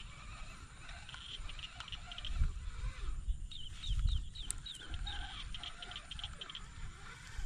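Small birds chirping, with a quick run of short falling chirps a little past the middle, over a low rumble with a few dull bumps.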